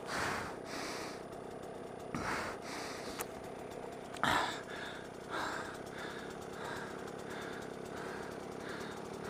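A rider breathing hard in quick, regular puffs while resting, winded from riding rough terrain, over a dirt bike engine idling steadily. One louder breath comes about four seconds in.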